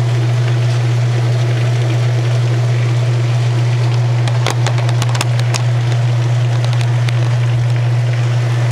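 1986 Kenmore 60 Series direct-drive top-load washer in its spin cycle: the motor hums steadily as the basket spins and water drains out. A few light ticks come about halfway through.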